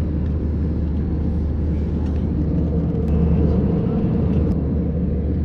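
Steady low rumble of an Airbus A320-200 cabin in cruise: engine and airflow noise heard from a passenger seat, swelling slightly about three seconds in.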